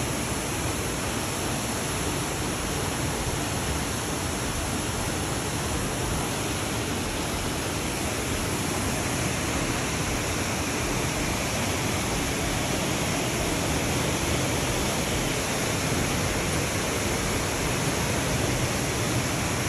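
Water rushing through a narrow rock gorge: a steady, even rushing noise that does not change.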